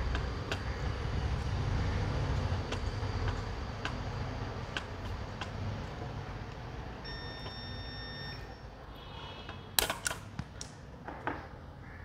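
PVC electrical insulation tape being handled and wrapped around a twisted wire joint: light scattered clicks, then a cluster of sharp crackles about ten seconds in as the tape is pulled and stretched. A low background rumble fades out over the first half, and a brief faint tone sounds partway through.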